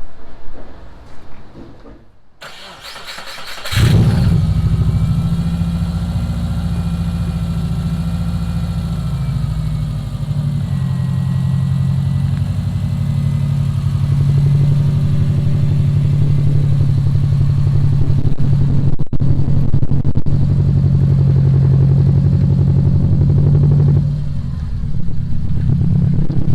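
Subaru Forester's flat-four boxer engine cranked over briefly by the starter and catching about four seconds in, then idling steadily. The idle settles to a lower pitch about ten seconds in.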